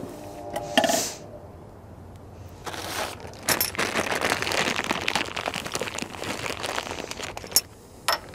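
Clear plastic bag of shock-absorber mounting hardware (bushings, washers, nuts) being crinkled and rummaged in gloved hands for several seconds, with small ticks of the parts inside. A brief knock comes about a second in, and a sharp click comes near the end.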